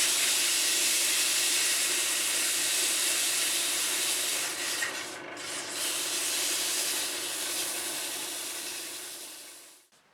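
Wood being turned on a lathe: a continuous rasping hiss of tool and sandpaper working the spinning wood. It dips briefly about five seconds in and fades out near the end.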